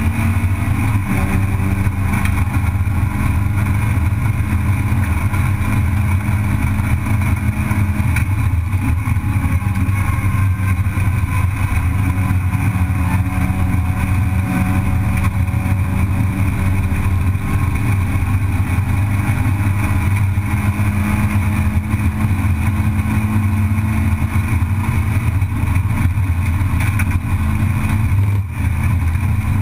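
Race car's engine heard from inside the cockpit, running hard at high revs with its note holding nearly steady and shifting slightly in pitch. Near the end the note briefly dips.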